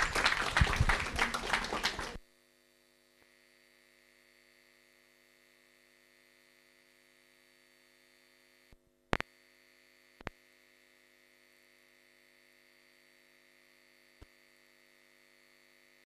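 Audience applauding for about two seconds, then cut off abruptly. Near silence follows, with a faint steady hum and a few faint clicks.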